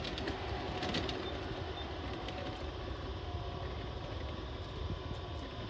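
Large-scale garden model freight train running: a steady rumble of the hopper cars rolling along the track, with a few light clicks about a second in.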